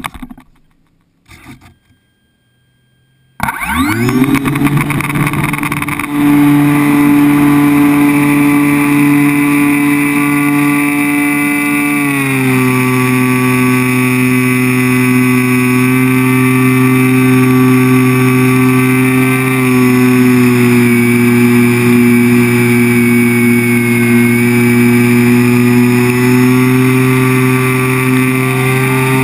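Electric motor and propeller of a ParkZone Extra 300 RC plane, muffled by a GoPro's waterproof housing. It spins up suddenly about three seconds in, gets louder a few seconds later, drops slightly in pitch about twelve seconds in, then runs steadily in flight.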